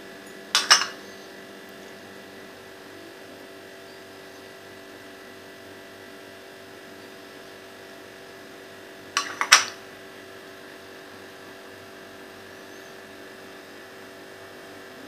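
Steady low electrical hum, broken twice by brief sharp knocks of kitchen items being handled: once about half a second in and as a quick double knock around nine and a half seconds in.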